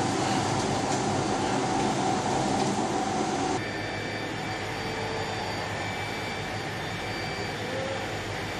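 Olive mill machinery running steadily. About three and a half seconds in, the noise cuts abruptly to a quieter, steady machine noise.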